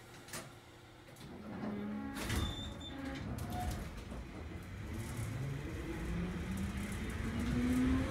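Wakayama Electric Railway 'Tama Densha' electric train pulling away: a rumble of wheels and running gear builds up after a quiet start, and from about halfway through a motor whine rises steadily in pitch as the train gathers speed. A click sounds near the start and another about two seconds in.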